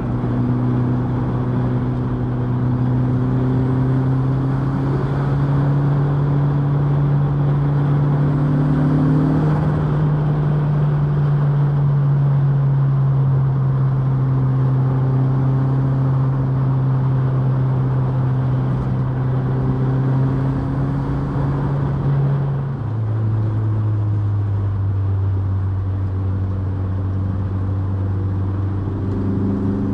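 Turbocharged 1.8-litre 20-valve four-cylinder engine of a Mk2 Golf running under steady driving. The engine note rises a little and holds, then drops to a lower steady pitch about two-thirds of the way through.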